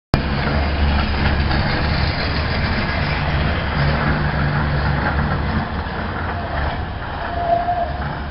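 Class 37 diesel-electric locomotive's engine running with a steady low drone, as the locomotive shunts.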